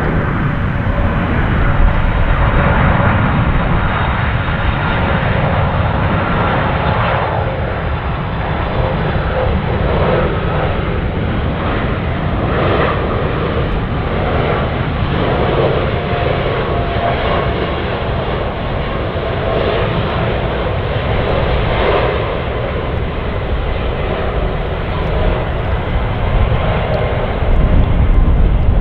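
Boeing 747-400 freighter's four jet engines on final approach: a steady loud rumble with a whining tone through it, growing louder near the end.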